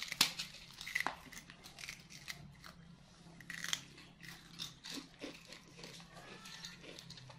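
Baby macaques eating a snack held in their hands: irregular small crunches, nibbles and clicks of chewing.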